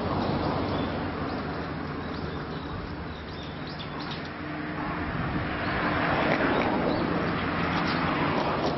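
Small birds chirping in short high calls over a steady low hum, with a broad rushing noise that swells about five seconds in.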